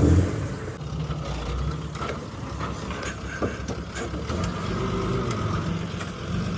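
Bulldozer's diesel engine running steadily, with a few sharp metallic clicks and clanks from the machine scattered through.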